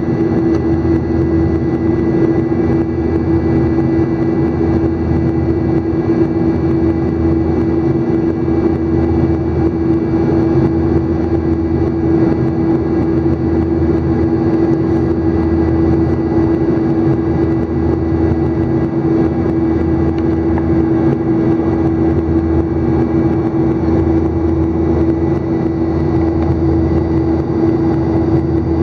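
Jet airliner's turbofan engines heard from inside the cabin while climbing out after takeoff: a loud, steady drone with a strong low hum and a thin high whine running through it.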